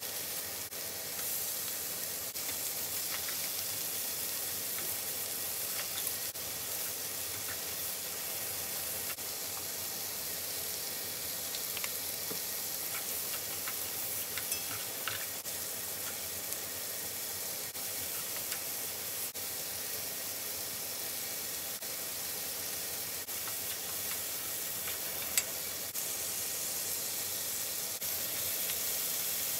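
Sliced chicken, onion and vegetables sizzling steadily in a frying pan as they are stir-fried with a wooden spatula and chopsticks, with light clicks of the utensils against the pan now and then and one sharper click near the end.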